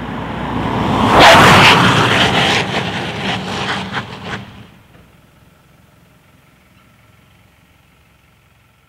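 2016 Mitsubishi Outlander diesel, a 2.2-litre turbo-diesel four-cylinder SUV, driving past at speed: its engine and tyre noise is loudest about a second in, then fades as it heads away. The sound cuts off about four and a half seconds in, leaving only a faint hum.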